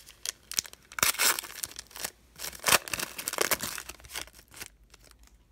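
A basketball card pack's wrapper being torn open and crinkled by hand, in several loud rustling bursts that die down near the end.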